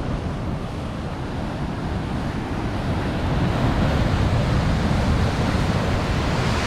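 Ocean surf washing on the shore, with wind buffeting the microphone; the wash swells louder about halfway through.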